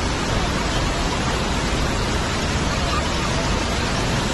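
Small waterfall pouring down a rock face: a steady, even rush of water.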